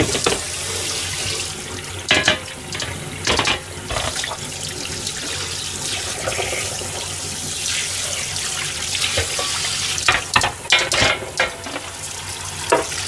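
Tap water running and splashing onto a metal grill drip pan in a stainless-steel sink. The pan and its grate are handled and scrubbed under the stream, giving sharp clatters a couple of seconds in, and a quick cluster of them near the end.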